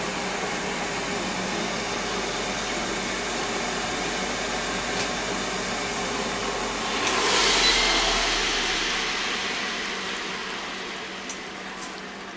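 Ninja Foodi's crisping-lid fan running steadily in bake/roast mode. About seven seconds in, as the lid is lifted, the noise swells briefly, then dies away gradually as the fan winds down.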